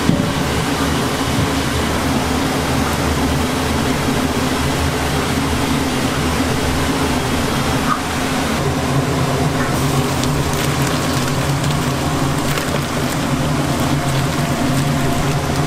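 Steady roar of a restaurant's high-powered gas wok burner and kitchen ventilation, with a low hum. From about halfway, light crackles and clicks of the broth boiling and the wok and ladle being worked join in.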